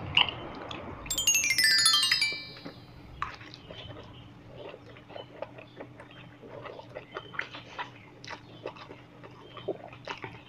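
A person eating jjajangmyeon noodles, with scattered small wet clicks and smacks of chewing and slurping. About a second in, a short bright chime sound effect of quick stepped tones is the loudest thing.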